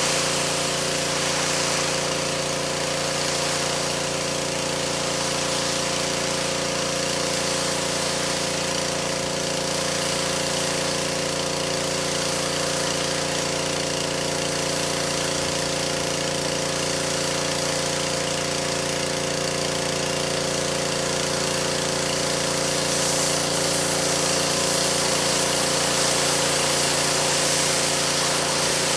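Pressure washer running steadily, its motor's hum under the hiss of the water jet.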